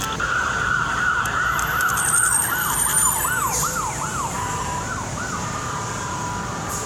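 Emergency-vehicle siren: a steady high wail, then from about two and a half seconds in a fast up-and-down warble of about three sweeps a second, which stops a little after five seconds.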